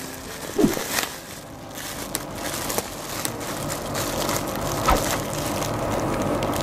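Bubble wrap and plastic packaging crinkling and crackling in the hands as a small taped parcel is pulled open, in short, irregular crackles.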